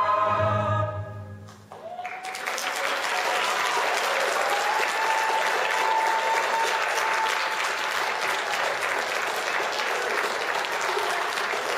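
A choir's final held chord dies away about a second in. Then the audience bursts into sustained applause, with a few cheers ringing over the clapping.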